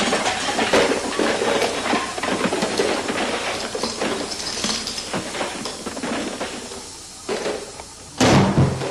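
A busy run of knocking and clattering impacts, then a single heavy thump near the end.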